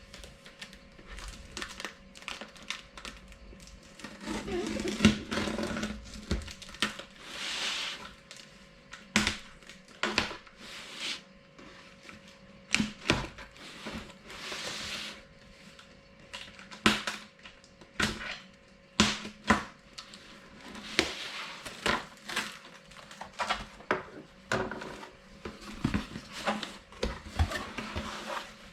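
Packaging being handled and opened: irregular rustling and crinkling with many sharp clicks and knocks.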